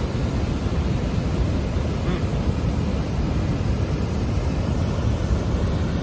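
Floodwater pouring over a dam's overflow weir and churning in the basin below: a steady, deep rushing noise.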